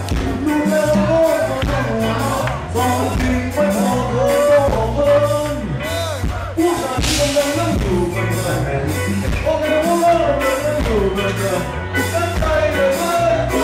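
A song playing: a voice singing over a steady bass line and drums.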